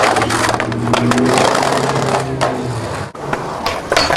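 Skateboard wheels rolling over a brick bank, a loud, steady rough rumble. After a break about three seconds in come a few sharp clacks as the board strikes a metal handrail.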